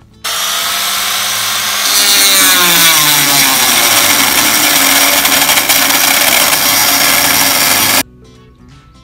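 Angle grinder with a metal-cutting disc cutting into the sheet steel of an old oil tank: a loud whining grind whose pitch drops about two seconds in as the disc bites, then holds steady. It starts abruptly and cuts off abruptly near the end.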